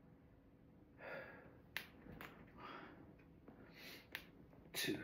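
A man breathing hard through a set of light dumbbell lifts, with a few sharp cracking clicks that he wonders might be his muscles. A heavier exhale comes near the end.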